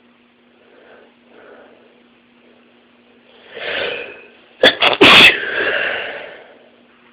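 A loud sneeze: a drawn-in build-up, then a sharp explosive burst in two quick parts about two-thirds of the way in, trailing off over about a second.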